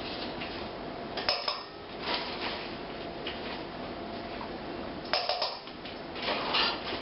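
Kitchen utensils knocking and clinking against a mixing bowl and dishes as ingredients are added to the bowl, with sharp clinks about a second in and again around five seconds in.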